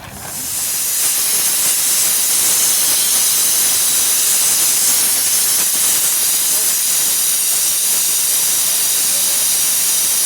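A glass of water poured into a hot cooking pan, sizzling and steaming: a loud, steady hiss that swells up within the first second.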